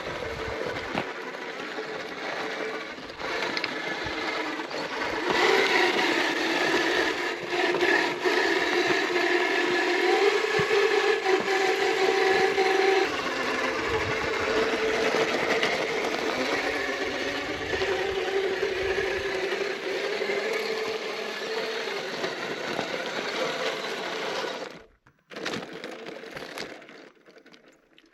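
Electric motor and gearbox of a 1/10-scale RC rock crawler whining as it crawls, with tyres scraping and crackling over rock. The whine rises and falls with the throttle, then cuts off suddenly near the end.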